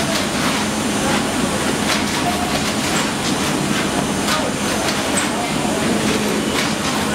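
Samsung pick-and-place machine running, placing components: a steady machine hum with sharp mechanical clicks coming a few times a second at uneven spacing.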